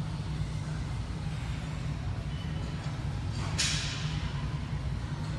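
Steady low rumble of gym room noise, with one short, sharp hiss about three and a half seconds in.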